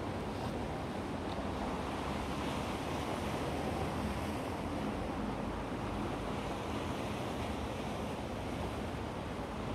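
Black Sea waves breaking and washing on the shore in a continuous, steady surf, swelling a little a few seconds in.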